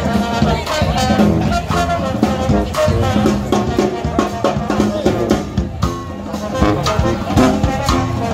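Upbeat brass-band music: horns over drums keeping a steady beat.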